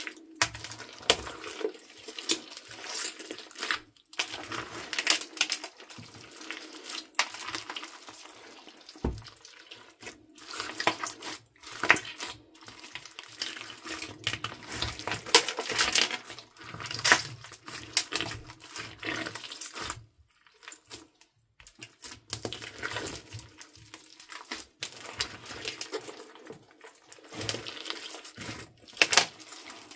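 Hands squishing and kneading a big mass of mixed slime studded with plastic beads: wet squelches with many sharp crackling clicks and pops, in uneven bursts with a few brief pauses.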